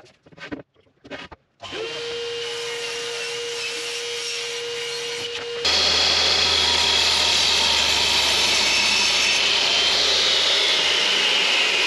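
A small power saw motor spins up to a steady hum. About halfway through, a louder, harsher mitre saw cut takes over: an electric mitre saw running with its blade slicing through a wooden plank blank cut to an angle.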